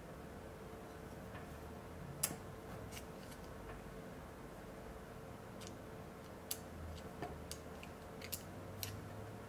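Small sharp clicks and taps of steel on steel as a digital caliper and a steel feeler gauge blade are handled and the caliper's jaws are slid shut on the blade. The clicks come irregularly, about eight in all, the sharpest about two seconds in, over a faint steady hum.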